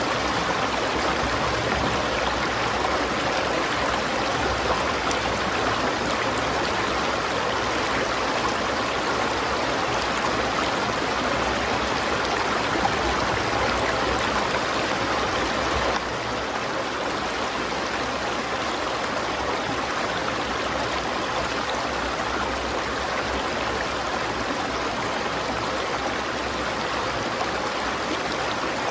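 River water flowing, a steady rushing with no pauses; it drops slightly in level a little over halfway through.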